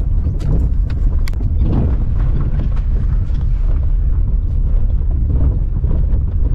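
Small Suzuki hatchback rolling slowly on light throttle, heard from inside the cabin: a steady low rumble of engine and tyres on a rough track, with a few light clicks and rattles in the first second and a half.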